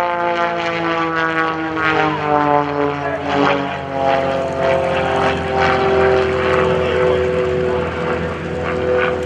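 Pitts S-1S aerobatic biplane's four-cylinder Lycoming engine and propeller running during an aerobatic routine. The pitch falls over the first three seconds or so, then holds steady.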